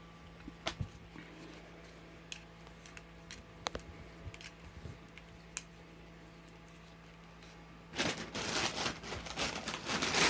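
Handling noise over a steady low hum: scattered light clicks, then about two seconds of rustling and crinkling near the end.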